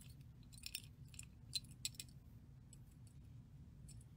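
Faint clicks and clinks of small glass and metal beads being picked up and handled on a bead board, several light ticks in the first two seconds and a couple of fainter ones near the end, over a low steady hum.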